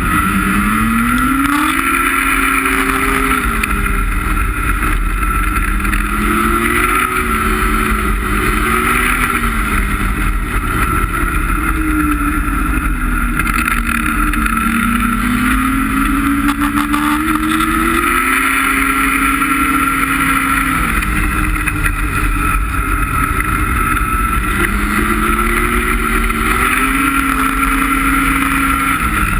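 Ski-Doo MXZ X 850 E-TEC two-stroke twin snowmobile engine running under way, its pitch rising and falling several times as the rider works the throttle.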